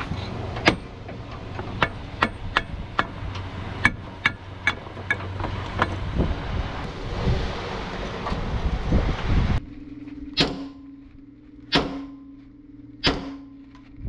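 Irregular metal clinks and knocks of tools and a truck propeller shaft being handled. Then three heavy sledgehammer blows on steel, about a second and a half apart, over a steady hum.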